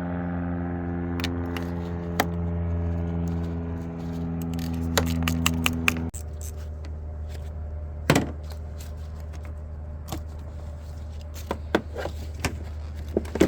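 Metallic clicks and clinks of a 10mm socket wrench at work on the car battery's terminal and hold-down bolts, in a quick run about five seconds in and scattered after. A steady background hum runs under them and drops suddenly about six seconds in.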